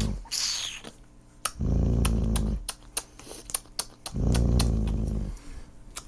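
Dog growling low in two long rumbles of about a second each, protesting at having its nails trimmed, with scattered sharp clicks in between.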